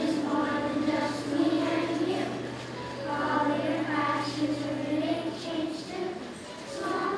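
A choir of young children singing together in unison, with several held notes.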